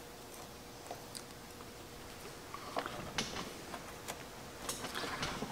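Faint handling noise as string is tied onto a metal-bracket launcher: scattered small clicks and ticks, coming more often in the second half.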